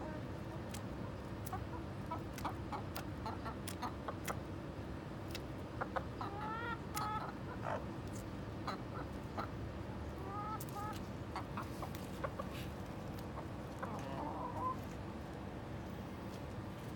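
Chickens clucking in a few short runs of soft notes, over a steady low hum, with sharp clicks scattered throughout.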